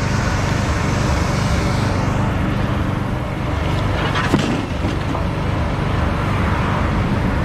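Engine of a sign-post driving machine running steadily, with one sharp knock about four seconds in.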